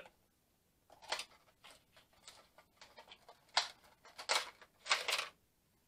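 Cardboard Funko Pop window box being opened by hand: a series of short rustles and scrapes of cardboard and plastic packaging, the three loudest in the last two seconds.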